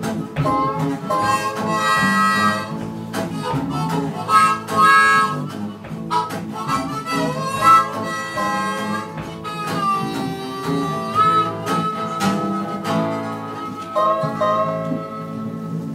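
Blues harmonica playing long held notes over several acoustic guitars picking and strumming, an instrumental passage with no singing.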